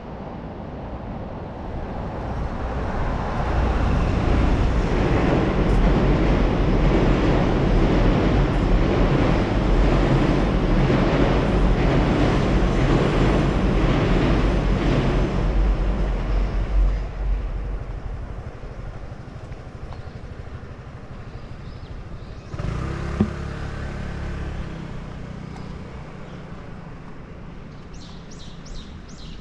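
Road traffic: a motor vehicle passing close, its engine swelling over several seconds, holding, then fading. A second vehicle passes more briefly later, with one sharp knock. A bird chirps a few times near the end.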